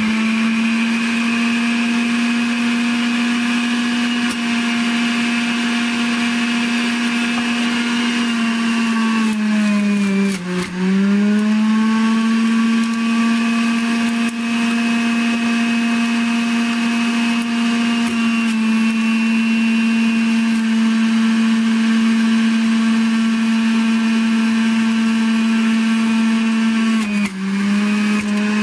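Centrifugal juicer's motor running with a steady whine. Its pitch dips briefly and recovers twice, about ten seconds in and near the end, as the motor slows under the load of produce pressed down the feed chute.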